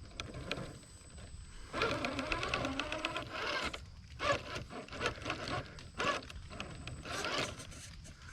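Traxxas TRX-4 Sport RC crawler's electric motor and drivetrain whining in several short throttle bursts as it climbs, with its tires crunching over dirt and roots.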